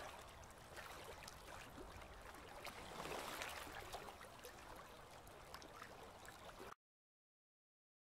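Faint hiss with scattered soft crackles, which cuts off suddenly to dead silence near the end.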